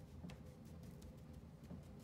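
Nearly silent room tone with a faint steady hum, broken by a couple of faint soft pats as a hand presses dry rub onto a raw chuck roast, one about a third of a second in and a weaker one near the end.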